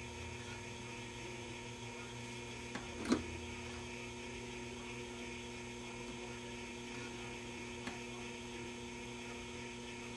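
Steady low mains hum, with a short sharp click about three seconds in and a faint tick near eight seconds.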